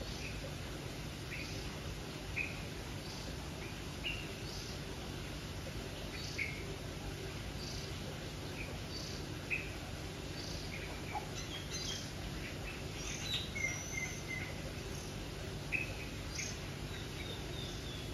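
Birds calling: a short call repeated about every second and a half, with other birds joining in with several calls in the middle and a short falling series near the end, over a steady low hum.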